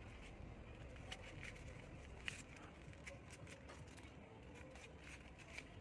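Faint handling of stiff folded paper: soft rustles and light clicks, one sharper click about two seconds in, over a low steady hum.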